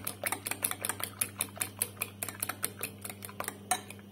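Metal fork beating eggs in a ceramic bowl: quick, even clicks of the fork striking the bowl, about five a second.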